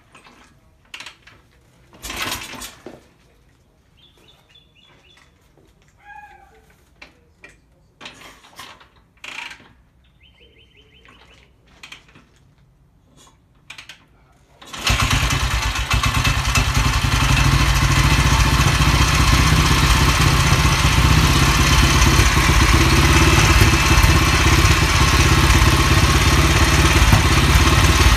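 Classic motorcycle's pushrod engine being kicked over, with scattered knocks and clatter. About halfway through it fires suddenly and settles into a steady run.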